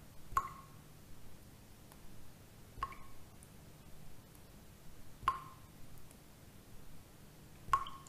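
Water dripping: single drops plinking at an even pace, about every two and a half seconds, four in all, over a faint low hum.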